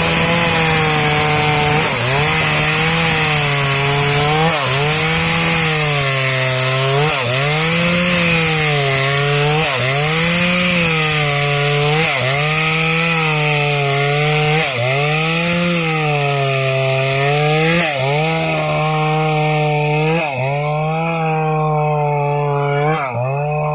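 Stihl MS 381 two-stroke chainsaw ripping lengthwise through a waru (sea hibiscus) log at full throttle, the engine pitch dipping under load and picking back up every second or two. The chip hiss thins out near the end.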